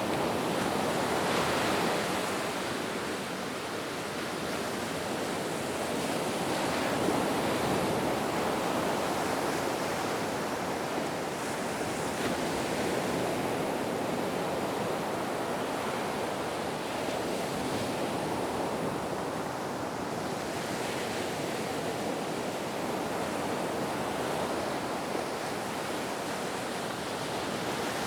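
Ocean surf on a beach: a steady rush of waves with slow, gentle rises and falls every few seconds.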